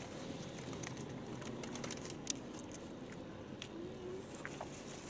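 Steady low hum inside a car cabin, with scattered small clicks and rustles and a brief faint child's vocal sound about four seconds in.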